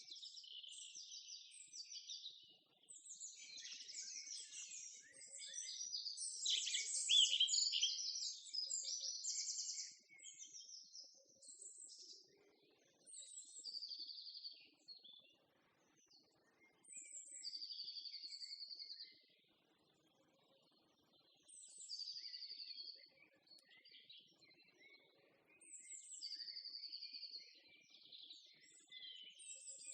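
Songbirds singing: a busy tangle of overlapping high chirps for the first ten seconds or so, then a song phrase repeated about every four seconds, each ending on a short held high note.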